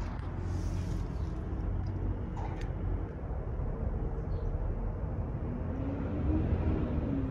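Steady low outdoor background rumble, with a faint tone that rises and falls near the end.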